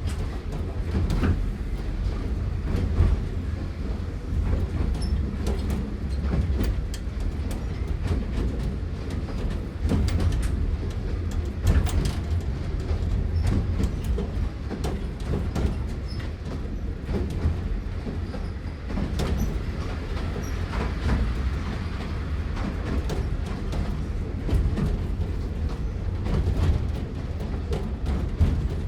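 Small narrow-gauge steam train heard from inside an open carriage while running: a steady low rumble, with frequent irregular clicks and knocks from the wheels and carriage.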